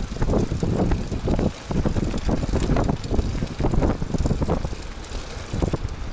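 Wind buffeting the microphone in irregular gusts while riding a bicycle, over the low rumble of the ride.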